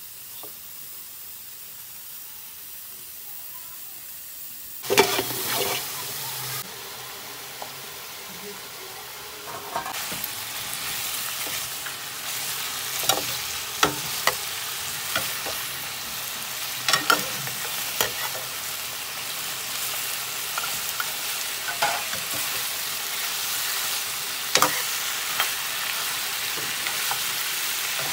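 Mutton pieces frying in hot oil in a pan, sizzling steadily, while a metal spoon scrapes and knocks against the pan as they are stirred. The sizzle starts as a quiet hiss and jumps to a louder frying about five seconds in.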